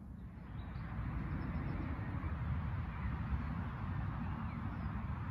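Wind buffeting the microphone: a steady low rumble with a hiss over it, growing a little stronger about half a second in.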